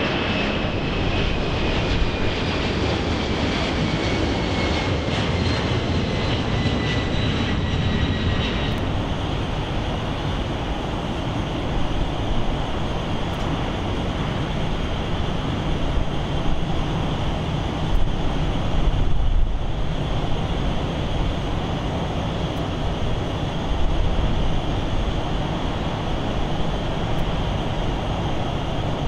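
Jet engines of a Boeing 767 freighter climbing away after takeoff, their whine falling slowly in pitch. After a cut about nine seconds in, the steady engine noise of a Boeing 787 Dreamliner taxiing, a high whine over a rumble.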